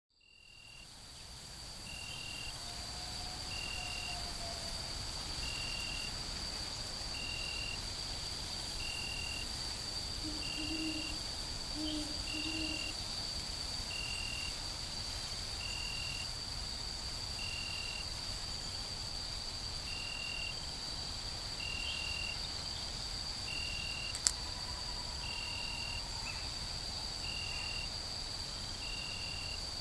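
Outdoor insect chorus, crickets, fading in over the first couple of seconds: a steady high-pitched trill with a shorter chirp repeating about every two seconds. A few faint low calls sound around the middle, and a single sharp click comes about 24 seconds in.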